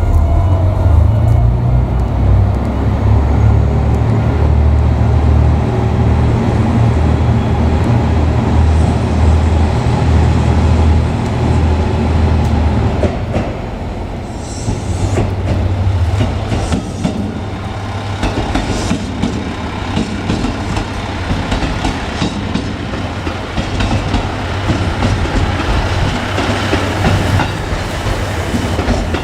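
JR Kyushu KiHa 200 diesel railcar passing close by. Its diesel engine rumbles low for the first half, then the wheels clatter over the rail joints as the cars go past.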